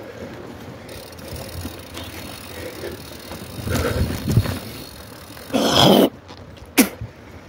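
Mountain bikes passing on a dirt cross-country race course, with tyre and drivetrain noise and clattering over rough ground. A louder rush of noise comes about five and a half seconds in, and a sharp knock follows a second later.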